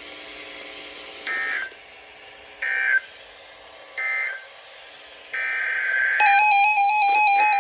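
Emergency Alert System digital data tones: three short bursts of shrill warbling about 1.3 seconds apart, the end-of-message code that closes a tornado warning. A longer data burst follows, and near the end a steady electronic tone sets in.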